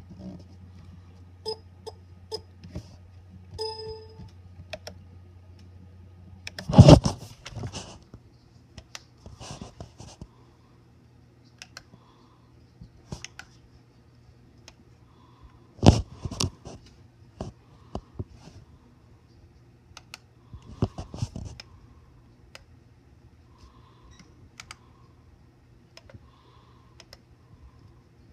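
Scattered taps and clicks on a laptop keyboard and touchpad, with two loud knocks about a quarter of the way in and just past halfway.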